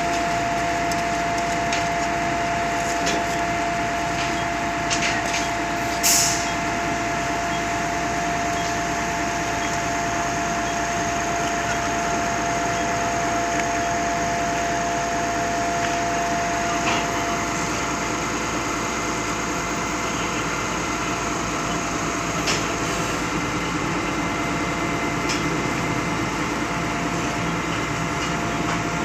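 Concrete pump running steadily, a machine drone with a steady whine that fades out about halfway. A few sharp knocks break in, the loudest about six seconds in.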